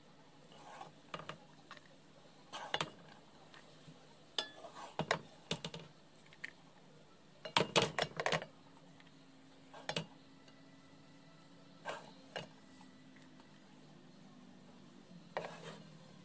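A serving spoon scraping and knocking against a cooking pot while cooked biryani rice is scooped out, in scattered irregular taps and scrapes with the loudest cluster about eight seconds in.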